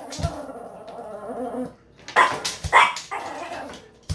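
A dog barking, with two loud short barks about two seconds in.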